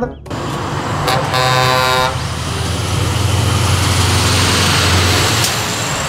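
Semi-trailer truck driving past on a road. Its horn sounds once briefly, about a second and a half in, over the steady noise of engine and tyres.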